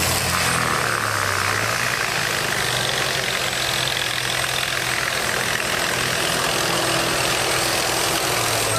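Engine of a heavy machine running steadily.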